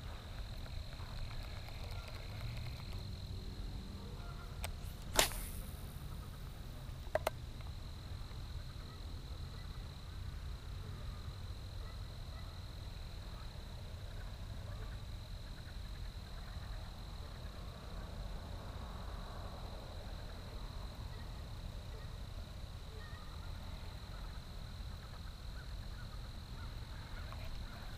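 Quiet outdoor ambience: a steady low rumble with a thin, steady high-pitched tone over it, broken by one sharp click about five seconds in and two softer clicks about two seconds later.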